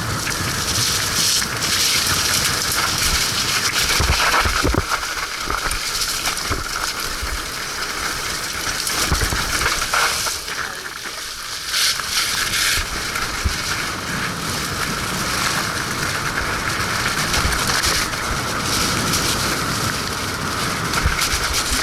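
Mountain bike riding over a wet, muddy trail: a steady crunching hiss of tyres in mud, with a few low thumps of the bike going over bumps.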